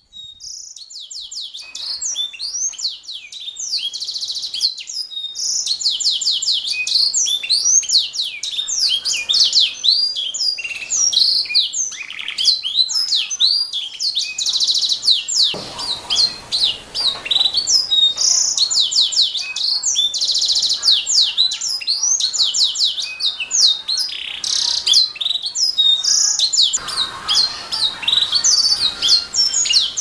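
Canary singing a long, nearly unbroken high-pitched song of fast trills and quick rising and falling whistles.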